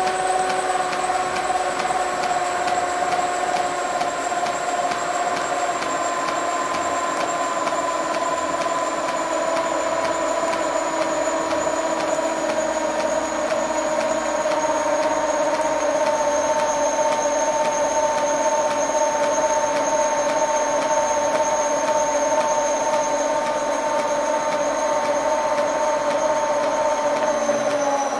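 1957 CVA toolroom lathe running under its 4 HP three-phase motor, fed by a Huanyang VFD. The whine falls slowly in pitch as the drive frequency is stepped down, then drops faster near the end. Faint, regular clunks come from the drive belt, which is coming apart at its join.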